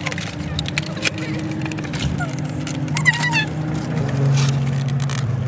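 Steady low hum of a car's engine and road noise heard inside the cabin, with sharp clicks and crinkles of plastic toy packaging being handled and a few brief words from a child.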